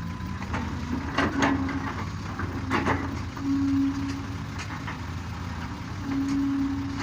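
Excavator's diesel engine running steadily, with a hydraulic whine rising in three short spells and a few sharp clanks about one and three seconds in.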